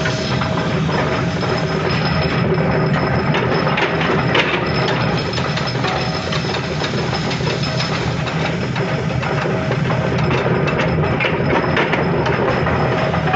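Flywheel-driven mechanical forging press running steadily, with a constant machine drone and many small metal knocks and clinks around the die as hot parts are pressed.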